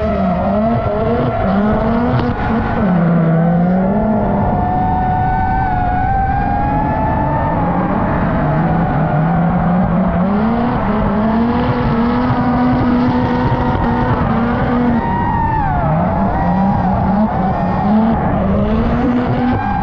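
Mazda RX-7 drift car's engine revving hard, its pitch rising and falling constantly, with tyre squeal as the car drifts through the corners.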